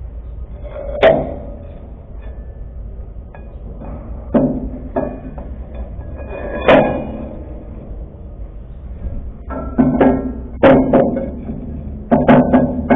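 Steel leaf-spring leaves of a Fuso truck clanking and ringing as they are set down on one another over the spring's center pin. A few sharp metal knocks come seconds apart, then a quicker run of them near the end, over a steady low hum.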